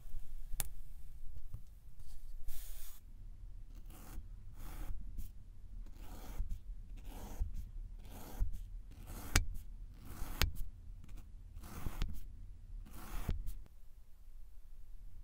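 Tools pressing into packed sand: a string of short, soft crunching scrapes, about two a second, as a stamp and then a thin metal rod are pushed in and pulled out. A few sharp clicks come among them, and the strokes stop near the end.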